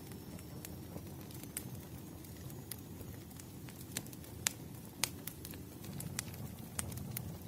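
Wood fire burning: scattered sharp crackles and pops over a low steady rumble, the loudest pops a little past the middle.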